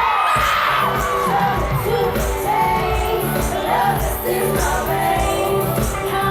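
Live pop concert: a female vocal group singing over loud amplified band backing, with crowd noise underneath.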